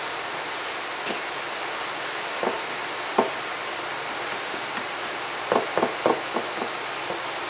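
Steady hiss with a few light clicks and knocks from kitchen handling, a quick cluster of small taps about five and a half seconds in.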